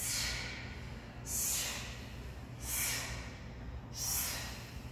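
A person's forceful breaths during a resistance-band leg exercise: four short breaths a little over a second apart, in time with the repetitions.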